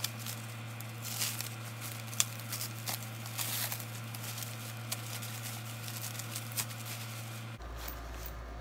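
Clear plastic wrapping crinkling and rustling as it is pulled off a leather handbag by hand, in irregular bursts of small crackles.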